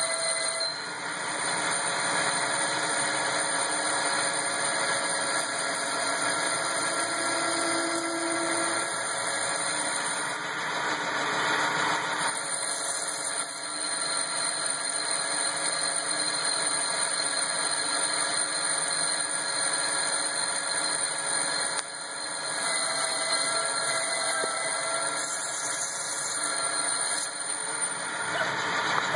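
Grizzly CNC lathe running a finish cut on a small locomotive wheel: the spindle turns steadily and the tool cuts the tread profile, a continuous machine whine with several steady tones over a noisy hiss.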